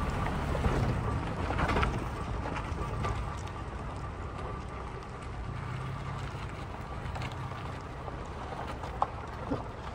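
Toyota Tacoma rolling slowly down a dirt trail: a steady low engine rumble under the crackle of tyres on dirt and loose gravel, with one sharp click near the end.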